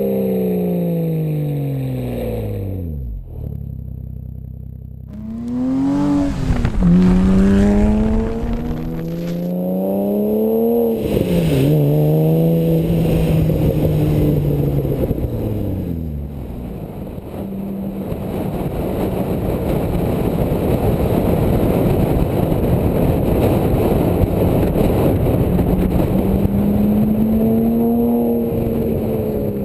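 Porsche Cayman's flat-six engine through a GMG World Challenge cat-back sport exhaust. The revs fall away, then climb hard through several upshifts, each one a sudden drop in pitch. After a steadier stretch the car passes close by near the end, its pitch rising and then falling.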